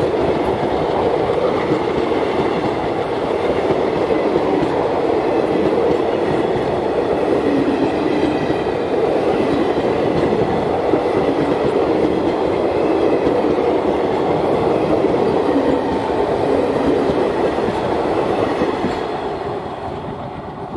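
Indian Railways passenger coaches rolling past at close range, their wheels running on the rails with a steady noise; it fades near the end as the last coach passes and draws away.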